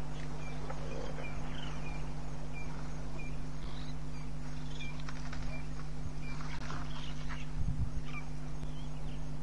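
Outdoor waterhole ambience: a small animal's short, high chirp repeats a little under twice a second over a steady low electrical hum, with one dull thump about three-quarters of the way through.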